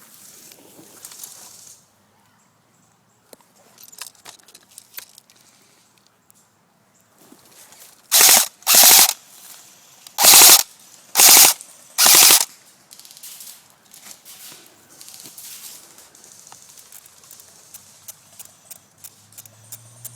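Five short, loud bursts of full-auto airsoft gun fire, each a rapid rattle of shots lasting under half a second, spread over about four seconds starting roughly eight seconds in.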